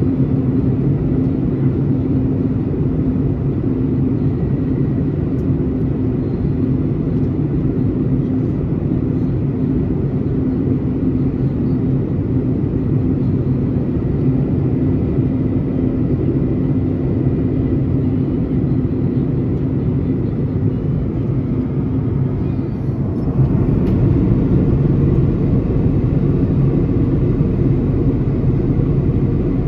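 Cabin drone of a Boeing 737-900ER's CFM56-7B turbofan engines, heard from a window seat beside the engine: a steady, loud hum with a low pitched note running through it. About 23 seconds in it turns slightly louder and brighter.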